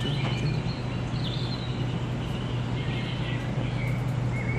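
Steady low hum and noise of room air filters and cat-fountain water pumps running, with a few faint high chirps over it.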